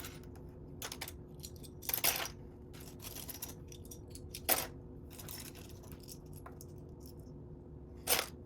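Plastic Lego pieces clicking and rattling against each other as they are rummaged through by hand, in several short separate bursts, the sharpest about four and a half seconds in.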